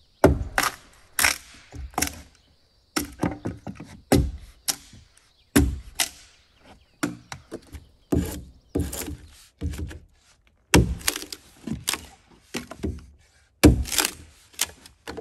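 Axe chopping into a peeled log, sending off chips and curls. Sharp wooden strikes come one or two a second in short runs, with brief pauses between them.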